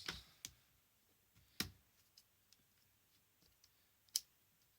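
Plastic clips of an HP Mini 110 netbook keyboard snapping as it is pressed into place: about four sharp clicks, the loudest about a second and a half in and near the end, with faint ticks between.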